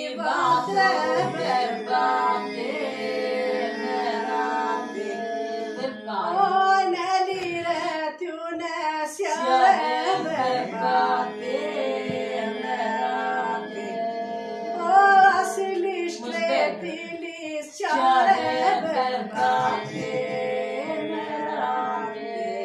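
Voices singing an Aromanian folk song unaccompanied, a melody moving over a steady low held note, in phrases with short breaks between them.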